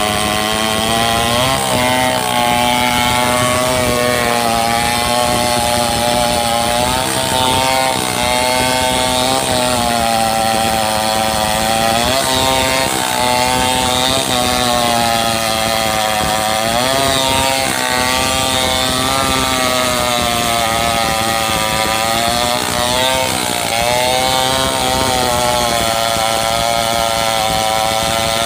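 Two-stroke chainsaw at high revs ripping lengthwise through a coconut palm log. The engine pitch sags and climbs back every few seconds as the chain bites into the wood.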